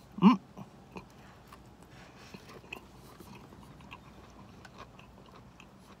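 A person chewing a mouthful of toasted sandwich, a string of soft, quiet mouth clicks, after a brief hummed 'mm' about a quarter second in.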